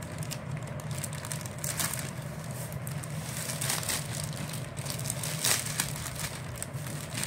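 Scissors cutting through a plastic courier mailer bag, with irregular crinkling and rustling as the plastic is cut and pulled open. A steady low hum runs underneath.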